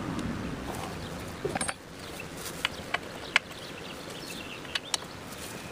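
A few sharp, separate metallic clicks and taps from a ratchet and the shift lever being worked into place on the motorcycle, over a steady outdoor background.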